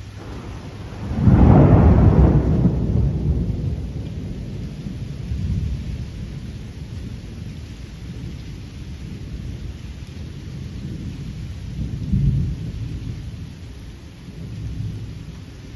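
Thunder: a loud clap about a second in that rolls off into a long, low rumble lasting several seconds, with a smaller swell of rumbling near the end.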